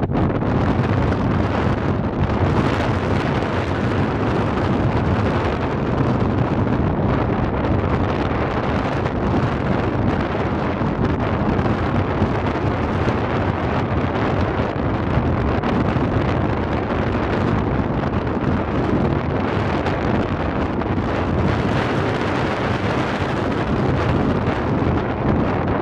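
Strong wind blowing across the microphone: a steady rushing noise with no pauses.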